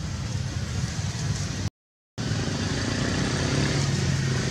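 Steady road traffic noise with a motor vehicle engine running low and even. The sound drops out completely for about half a second near two seconds in.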